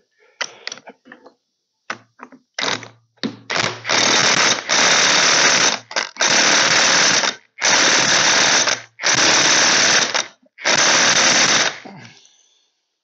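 Cordless impact wrench hammering, tightening down the nut that holds the piston on a hydraulic cylinder rod. It gives a few short blips, then five longer bursts of one to two seconds each.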